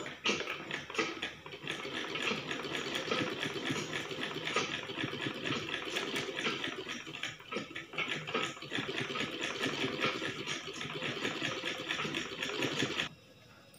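Sewing machine stitching at a steady pace, a rapid even clatter of the needle mechanism, which stops suddenly about a second before the end.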